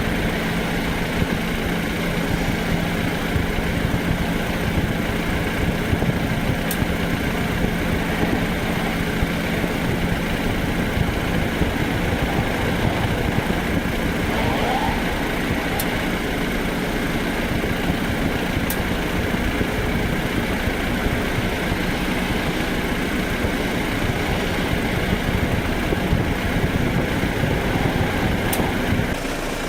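BMW F10 running with a steady engine hum and a rough low rumble, with a few faint, sharp ticks scattered through it. This is the ticking noise the owner hears from the right front wheel when the steering is turned right.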